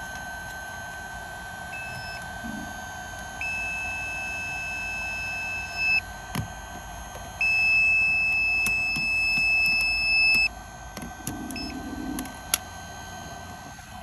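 Electronic beeps over the steady hum of a running dishwasher: a short beep about two seconds in, two long steady beeps of two to three seconds each, and a last short beep near the end. A few sharp clicks fall between them.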